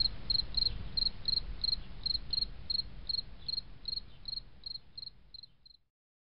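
Insect chirping: a high chirp about three times a second over a low rumble, fading and stopping near the end.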